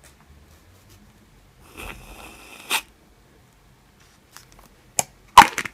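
Can of aerosol whipped cream spraying onto paper: a hiss of about a second that ends in a short sputter. Near the end come a couple of sharp knocks, the louder one the loudest sound here.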